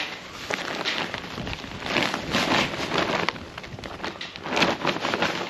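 Soil and potatoes rustling and crunching as they are handled and tipped out of a potato grow bag, in irregular scraping surges with many small clicks.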